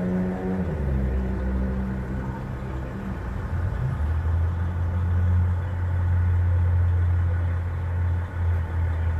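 A vehicle engine idling: a steady low hum that grows a little stronger a few seconds in.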